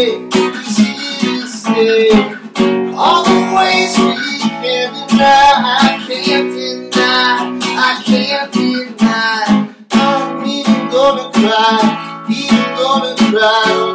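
Acoustic guitar strummed in a steady rhythm of repeated chord strokes: an instrumental passage between sung lines.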